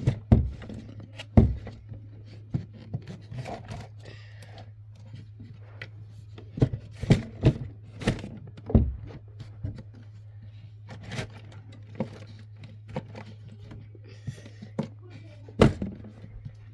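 Irregular knocks, clicks and light scrapes of small plastic fidget toys and their containers being handled and packed away, over a steady low hum.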